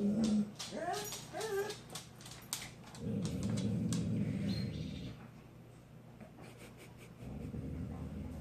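Dog whining in short rising-and-falling cries about a second in, followed by a low, rough sound lasting a couple of seconds.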